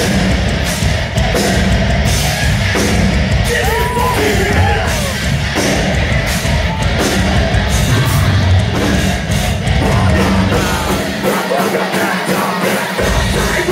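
A metalcore band playing live, with heavy distorted guitars, bass, drums and screamed vocals, heard from inside the crowd. The bass and kick drop out for about two seconds near the end, then come back in.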